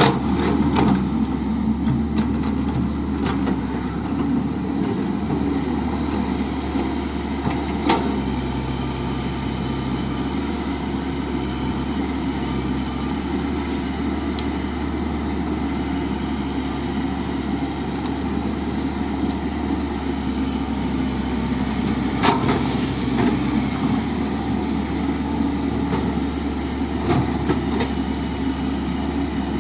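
Komatsu hydraulic excavator's diesel engine running steadily, with a few sharp knocks over it.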